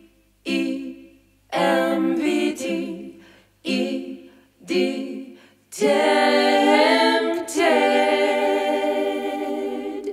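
Background music of a cappella singing, with no instruments heard: short sung phrases with brief pauses, then long held notes from about six seconds in.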